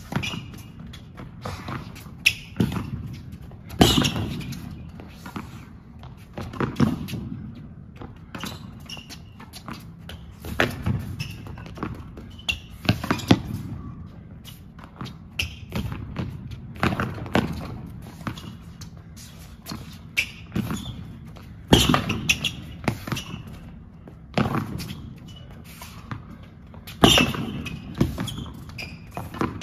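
Tennis rally on an indoor hard court: rackets striking the ball and the ball bouncing, sharp pops about every second, echoing in the hall.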